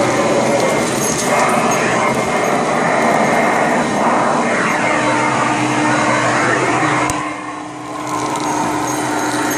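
Hoover Conquest direct-air upright vacuum running with a hose attachment, a steady motor whine over the rush of suction as it picks up debris. The sound drops briefly a little past seven seconds in, then returns.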